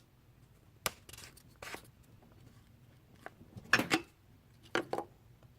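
Short plastic clicks and scrapes of the power steering fluid reservoir cap being twisted and handled, the loudest rustle about four seconds in.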